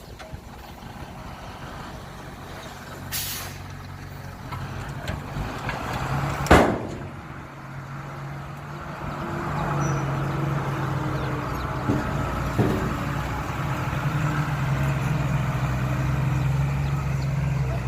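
A heavy diesel dump truck's engine running with a steady low drone. There is a short high hiss about three seconds in and a loud sudden blast about six and a half seconds in, typical of air brakes. The engine grows louder from about nine seconds in.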